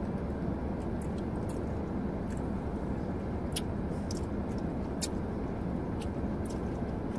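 Steady low hum of a car's interior, with faint scattered clicks and smacks from gummy candy being squeezed out of pouches and eaten.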